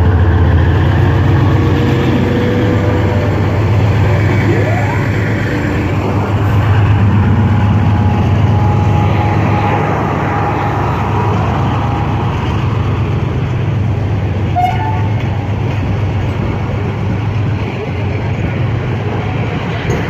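Pakistan Railways AGE-30 diesel-electric locomotive running under power with a steady low engine drone as it hauls the train slowly past, followed by passenger coaches rolling by on the rails. The railfan suspects a fault: the engine is at full throttle, but the train is slow to pick up and keeps losing pressure.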